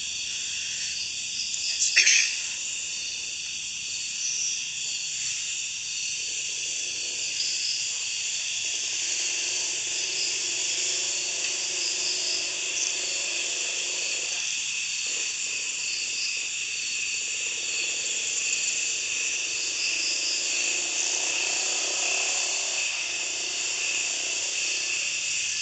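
Steady chorus of night insects such as crickets, a continuous high shrill, with one sharp click about two seconds in.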